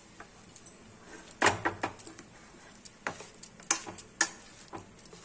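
Metal ladle clinking and scraping against a metal pot while stirring jaggery lumps melting in a little water: a handful of irregular knocks, the loudest about one and a half seconds in.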